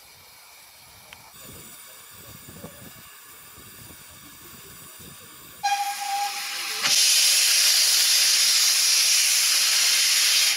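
Steam locomotive, GWR 4200-class 2-8-0 tank engine No. 4270, gives one short whistle blast about halfway through. Straight after, its cylinder drain cocks blow steam with a loud, steady hiss.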